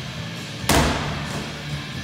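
Rock music playing, with one loud thud of a medicine ball striking about two-thirds of a second in.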